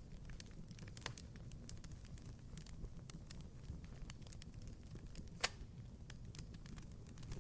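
Wood fire in a fireplace crackling: a steady low rumble of burning with irregular sharp pops and snaps, one louder pop about five and a half seconds in.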